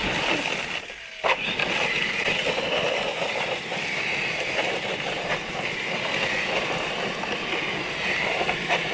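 RC monster trucks' electric drive motors whining under full power while their tyres spin on loose gravel, spraying stones, as they strain against each other on a tow rope; a sharp clack about a second in.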